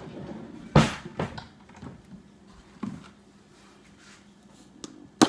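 Kitchen clatter at the counter: a few short knocks, the sharpest about a second in, then lighter ones, and another sharp clack near the end.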